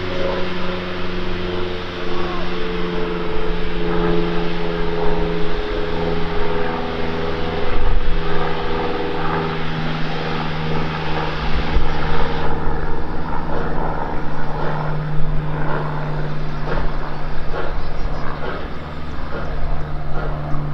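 GWR 94xx pannier tank steam locomotive 9466 working a train at a distance, its exhaust beats faint and clearer in the second half, under a steady low mechanical hum.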